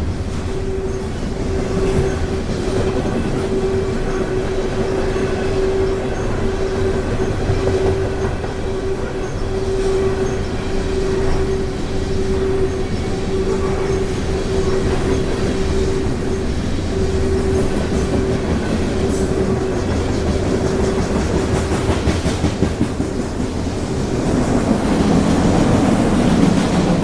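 Freight cars of a CSX mixed manifest train rolling past with wheels clacking on the rail, and a steady tone pulsing on and off about once a second. The rumble swells louder near the end.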